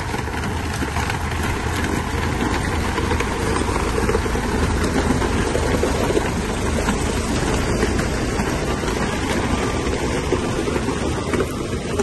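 Heavy diesel construction machinery running steadily, a continuous low engine sound with no clear changes.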